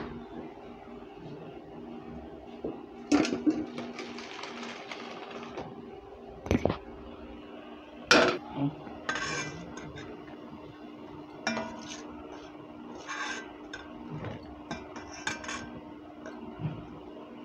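Metal cookware clattering: a kadai being handled off the stove, then a steel ladle clinking and scraping against a steel bowl of dal. A few sharp knocks come in the first half, then lighter, quicker clinks.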